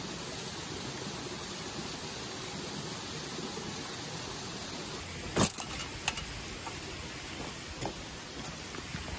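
Steady rush of a mountain stream, with a sharp clack about halfway through and a few lighter clinks after it as a loaded backpack with gear hanging on it is set down on the ground.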